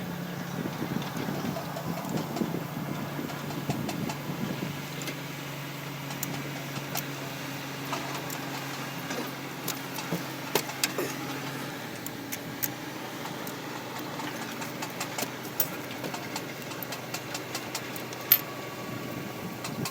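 An engine running steadily at low speed; its hum drops slightly in pitch at the start and fades about halfway through, with scattered sharp metallic clicks.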